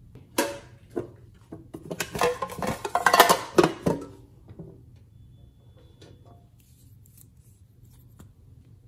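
Plastic clay piping bag being handled: a sharp click about half a second in, then about two seconds of crinkling and crackling plastic.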